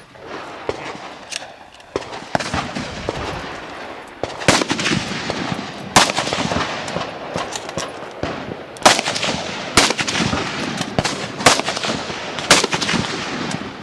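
Gunshots: about eight loud single shots at uneven intervals, each with a short ringing echo, and fainter shots in between.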